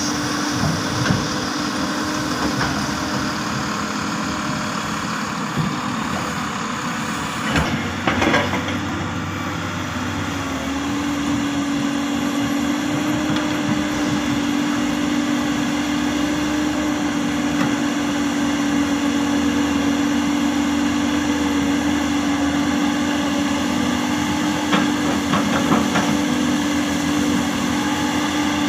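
Hyundai 330LC-9S excavator's diesel engine running steadily, its pitch rising slightly and growing stronger about ten seconds in, with a few short metallic knocks around eight seconds in and again near the end.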